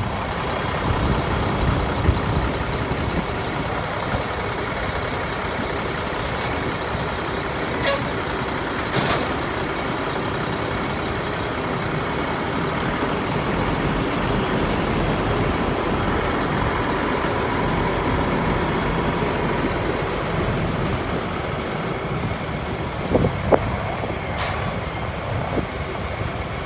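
Heavy diesel harvest machinery running steadily, with a few brief sharp clicks partway through and near the end.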